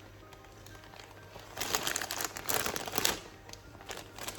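Crinkling and rustling in a few short irregular bursts, starting after a quiet first second and a half, over faint background music.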